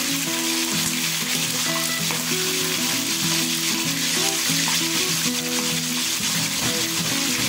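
Two whole Indian mackerel (alumahan) frying in a pan of hot oil, sizzling steadily, with background music playing over it.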